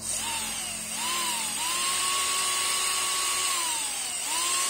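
Small 12-volt brushed DC motor from a cordless drill spinning up unloaded on 12 volts with a high whine and a steady brush hiss. Its pitch dips and climbs twice in the first second and a half, holds steady, then slows and spins back up near the end.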